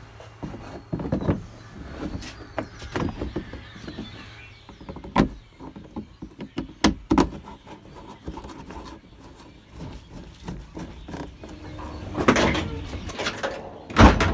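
A series of sharp metal clicks and knocks from hand tools working the bolts of a dump truck's hood latch, ending in a loud thump.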